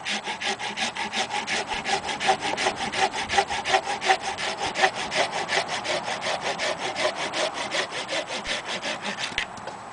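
Parkside garden pruning saw, its teeth freshly set, sawing a green cherry branch a little thicker than a thumb in quick, regular back-and-forth strokes that stop near the end. The saw keeps cutting steadily instead of binding.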